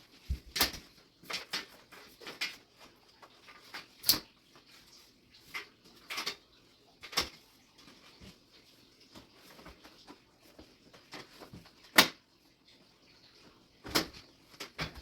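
Hands working power cables and plastic connectors inside a computer case: scattered clicks, taps and rustles, the sharpest about 4, 7, 12 and 14 seconds in.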